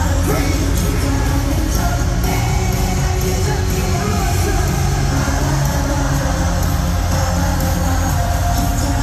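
Live K-pop concert music over an arena PA: heavy bass, a steady beat and a singer's vocals, picked up from within the audience.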